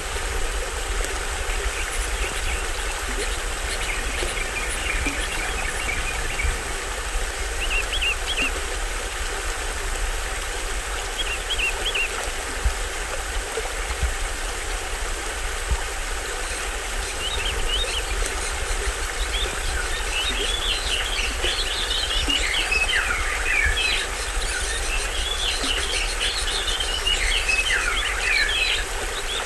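Small waterfall on a stream splashing steadily, with birds chirping over it: a few short calls early, then a busy run of quick chirps and trills through the second half.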